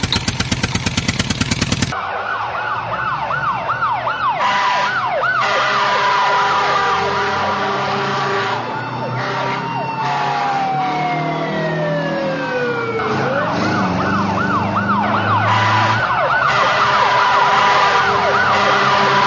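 A fast, evenly pulsing engine sound for about the first two seconds, then emergency-vehicle sirens. Rapid rising-and-falling yelps are followed around the middle by a slow falling wail, then rapid yelps again.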